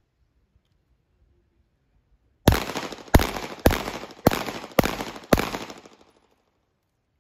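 Six handgun shots fired in quick succession, a little over half a second apart, each with a short echo trailing off after it.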